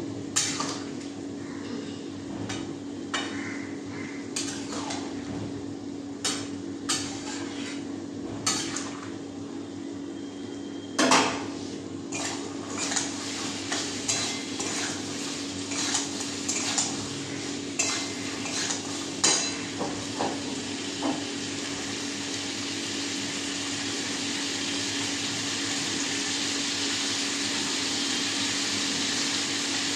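A spatula knocking and scraping against steel woks while potato curry is stirred, irregular clinks and taps, the loudest about eleven seconds in. The clinks stop about twenty seconds in, and a steady hiss, slowly growing louder, carries on over a low hum.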